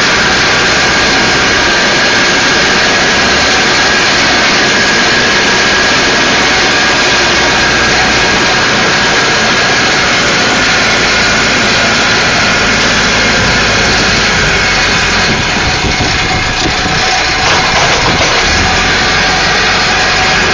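Caterpillar 416C backhoe's Perkins turbo diesel engine running steadily, loud and close, with a steady high whine over the engine noise.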